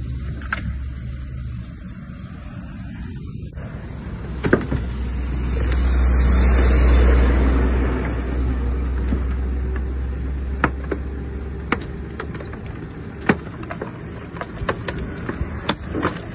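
A motor running with a low rumble that swells midway and then eases, and scattered sharp knocks and creaks from the metal body as a recovery truck pulls an overturned car from its roof onto its side.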